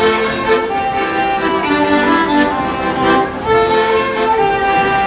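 Violin playing a Latvian folk melody in held, stepping notes.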